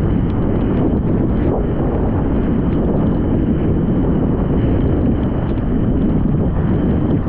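Strong wind buffeting the microphone of an action camera on a kitesurfer riding at speed, mixed with the rush of the kiteboard skimming over choppy water.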